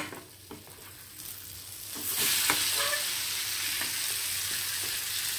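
Besan-battered bread pudla with its vegetable topping flipped with a spatula onto the buttered non-stick pan. A sharp tap and a few lighter scrapes of the spatula come first, then loud, steady sizzling sets in about two seconds in as the topped side meets the hot butter.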